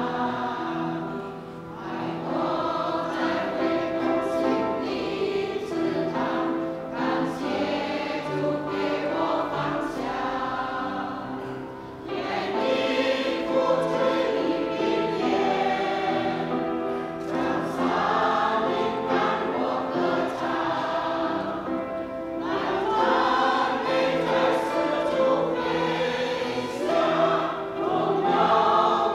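Mixed church choir singing a hymn in held, layered chords, growing louder about twelve seconds in and again a few seconds before the end.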